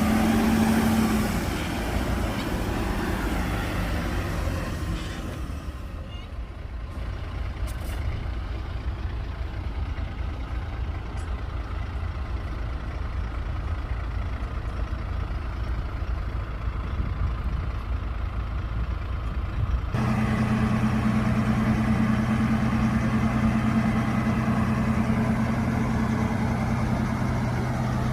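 Heavy diesel earthmoving machinery running at a work site. The engine sound changes abruptly about two-thirds of the way through to a louder, steady engine drone with a low hum.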